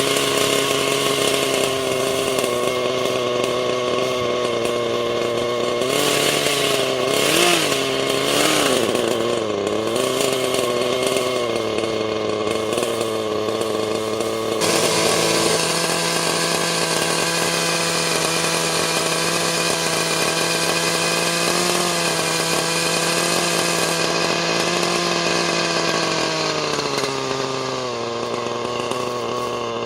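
Thunder Tiger Redline RL-53H nitro two-stroke engine of an RC helicopter running without rotor blades during break-in. Its speed wavers for several seconds, changes pitch abruptly about halfway through and drops to a lower speed near the end.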